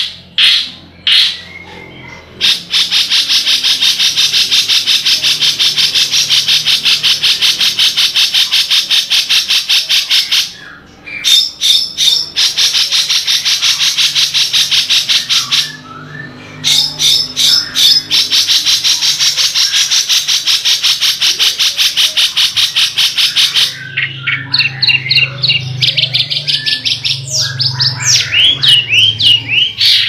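Long-tailed shrike (cendet) singing: long runs of very fast, evenly repeated high notes, broken twice by short pauses. Near the end it changes to a varied string of quick chirps and rising and falling whistles.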